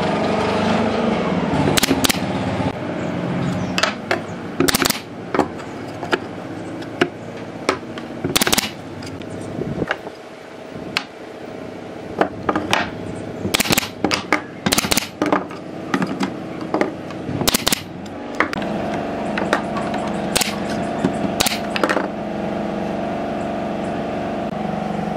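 Wooden slats being set down and knocked into place on a pine frame: a string of sharp wooden clacks and knocks. A steady motor hum runs at the start and returns for the last several seconds.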